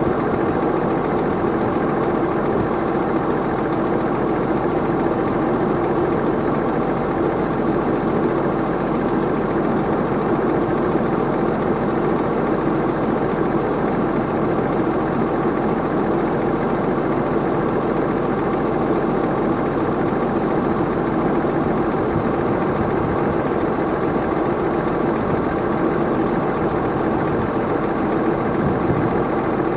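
Tractor engine and PTO-driven Kuhn i-BIO+ round baler-wrapper running steadily at work, an even mechanical drone with no breaks or sharp knocks.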